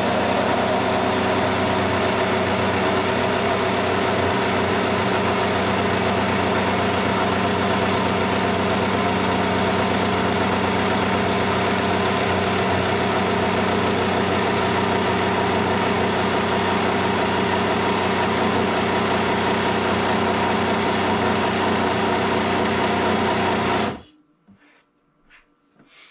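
Countertop blender running steadily, grinding cooked soybeans and water into a thick paste, then switched off about two seconds before the end. A few faint clicks follow.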